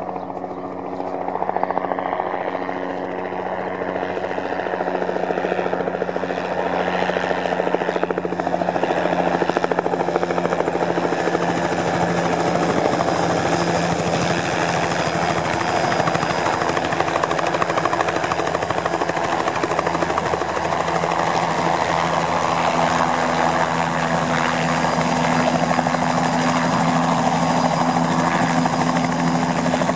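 Bell 206 JetRanger helicopter approaching and landing. The turbine and rotor noise grows louder over the first ten seconds or so, then stays steady and close as the helicopter hovers and sets down on its skids, with steady whining tones running under the rotor noise.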